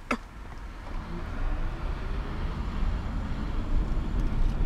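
In-cabin sound of a Toyota Prius pulling away and picking up speed: road and tyre noise with a low rumble builds steadily, and a faint whine rises slowly in pitch. A sharp click at the very start.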